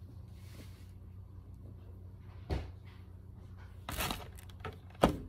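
Hands handling a plush toy and its parts on a hard surface: a few sharp knocks and taps, the loudest near the end, over a steady low hum.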